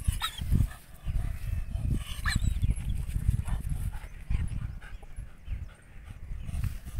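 German shepherd giving two short whimpers, one about a quarter second in and one a little after two seconds, over a steady low rumble of wind on the microphone.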